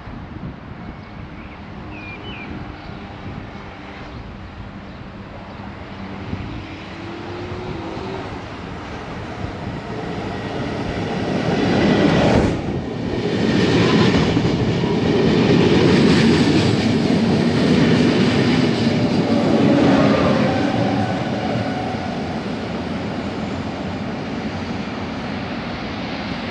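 A train passing through a railway station: its rumble builds for about twelve seconds, is loudest for the next eight or so, then fades away.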